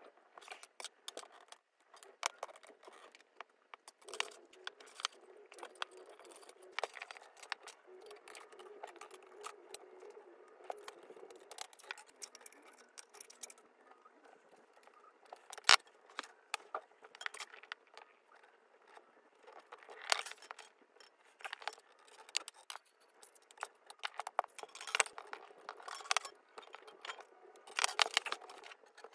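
Steel pliers and a thin white-coated wire coat hanger clicking and tapping against each other and the wooden desktop while the wire is bent by hand. The clicks are irregular and light, with one sharp knock about halfway through.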